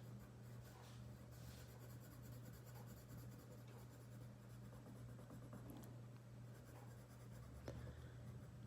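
Faint scratching of a coloured pencil shading on paper, over a steady low electrical hum, with a light tap near the end.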